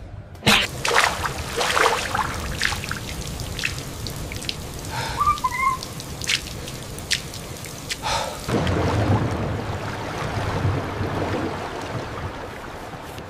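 Rain falling, with scattered drips and splashes on wet ground and a brief faint chirp near the middle. From about eight and a half seconds in, the water noise becomes a denser, steadier wash.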